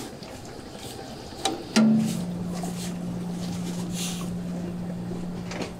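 A couple of clicks, then a small motor starts about two seconds in and hums steadily at one low pitch.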